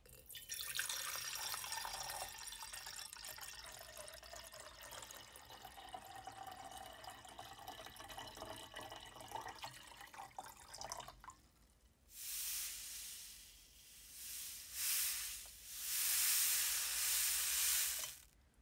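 Water poured in a stream into an empty glass beaker, running for about eleven seconds and then stopping. After a short pause come several louder swells of hissing noise.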